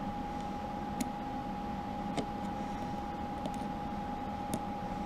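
A steady high-pitched whine, with four faint clicks from metal multimeter probe tips being handled against the battery terminals.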